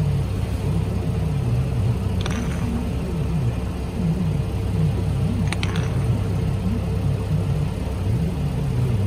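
Car engine idling with a steady low rumble. Two light clicks, about two seconds and about five and a half seconds in, as plastic bottles are set down on paving stones.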